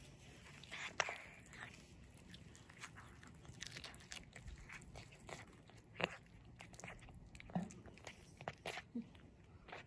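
Cat biting and chewing a small fresh raw fish, in irregular sharp crunches and clicks, the loudest about a second in and again about six seconds in.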